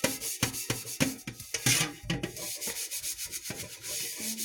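A scouring disc with cleaning paste is scrubbed hard back and forth against a soot-blackened cooking pot, in quick even strokes of about three a second. About two seconds in, the strokes turn faster and lighter.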